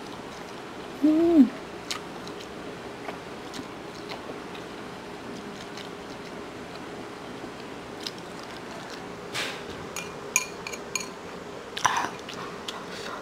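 Noodle-eating sounds: slurping and chewing with small lip smacks and clicks, more frequent in the last few seconds. About a second in there is a short hummed "mm" that rises and falls in pitch. A faint steady hum runs underneath.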